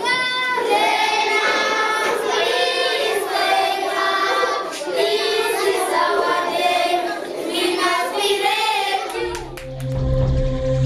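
A group of children's voices singing together. About nine seconds in the singing stops and a steady music track with a low drone takes over.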